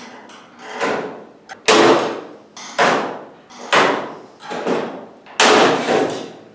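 Hand-held sheet-metal hole punch punching holes through the aluminium bow panel of a welded kayak hull. About six sharp snaps come roughly a second apart, each ringing briefly through the metal.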